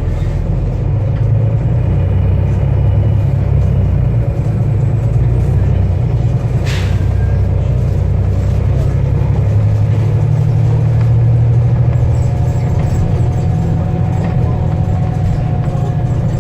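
Volvo B7TL double-decker bus's turbocharged diesel engine running as a steady low rumble, with a faint turbo whistle in the second half. One sharp click about six and a half seconds in.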